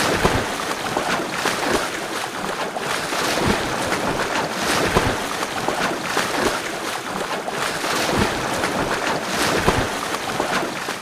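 Water splashing and churning as a person swims, with a steady wash of sloshing and irregular stronger splashes from the strokes every second or two.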